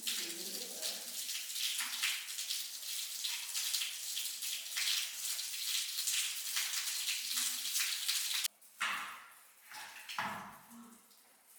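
Water running and splashing steadily, cutting off suddenly about three-quarters of the way through, followed by a few short splashing noises.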